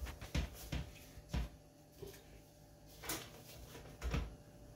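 Raw beef short ribs being set down one by one into a large aluminium stockpot: about six soft thuds and knocks, irregularly spaced.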